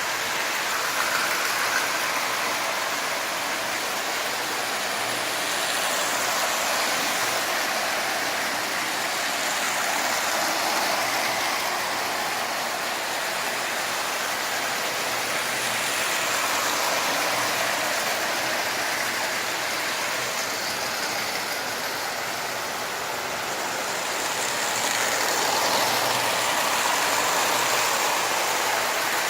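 Marx electric tin-plate toy trains running around the track: a steady rattling whir of the motors and wheels on the tin rails, growing a little louder near the end.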